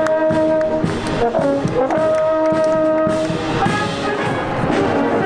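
Marching brass band playing a march: tuba, tenor horns, trumpets and saxophones sound held notes that change every second or so, over regular drum beats.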